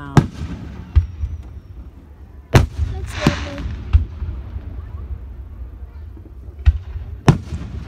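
Aerial fireworks shells bursting overhead: about seven sharp bangs at uneven intervals, with a short crackling hiss a little after three seconds in.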